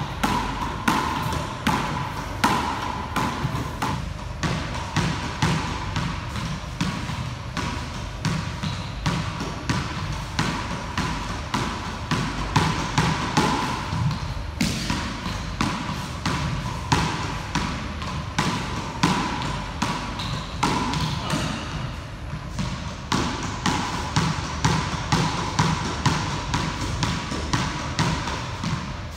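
A squash ball hit over and over in an enclosed squash court: sharp racket strikes and the ball smacking the front wall and floor, a few impacts each second in a steady solo rally.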